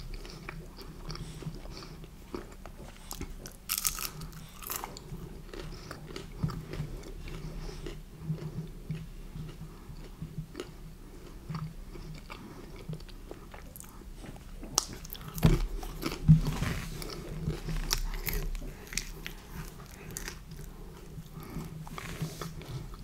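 A person biting and chewing pepperoni and beef pizza, with crunches of crust throughout and two louder crunches about two thirds of the way in.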